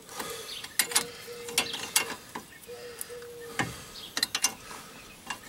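Combination wrench clinking on a bolt of a truck's front suspension as it is turned by hand and refitted between swings: a string of sharp, irregular metal clicks, the loudest about three and a half seconds in.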